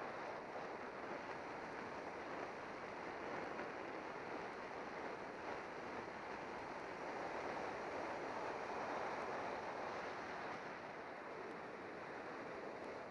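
Wind rushing over the microphone of a bicycle-mounted camera on a fast downhill, mixed with tyre noise on the asphalt: a steady rush that swells a little towards the middle.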